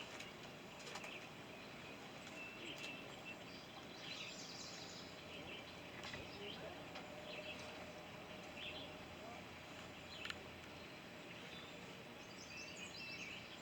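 Quiet outdoor ambience: a steady, faint background hiss with scattered faint bird chirps.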